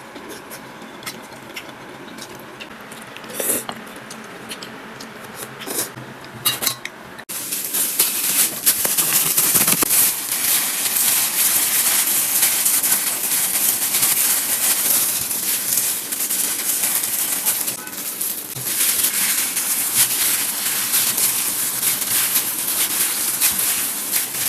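Stir-frying in a wok: a metal spatula clinks against the pan, then about seven seconds in a loud, dense crackling sizzle starts and carries on.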